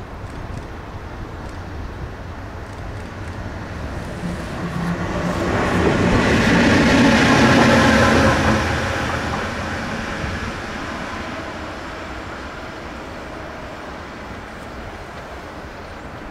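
PKP Cargo electric locomotive passing on the track. The rumble of its wheels on the rails builds, peaks about eight seconds in with a steady whine on top, then fades as it runs away.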